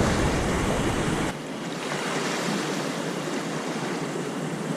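Ocean surf washing steadily against a rocky shore, with wind rumbling on the microphone for about the first second before it drops away.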